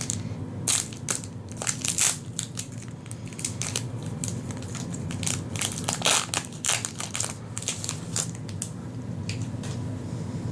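Plastic wrapping on a pack of trading cards being crinkled and pulled open by hand, in a run of irregular crackles that thin out near the end.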